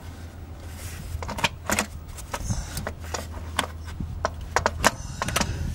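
Irregular metallic clinks and knocks as a Hyundai Sonata 2.4's starter motor is wiggled by hand to work it loose from its mounting against the engine, over a steady low hum.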